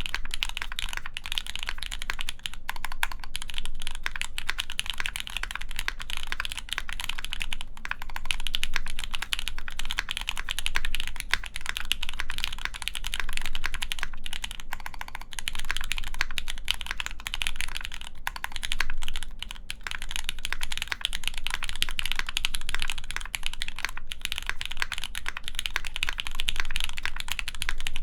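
Continuous fast typing on a Gentoo prototype mechanical keyboard with lubed Gateron Mizu Mink linear switches, GMK keycaps and an aluminium plate: a dense stream of key clicks with brief pauses between bursts.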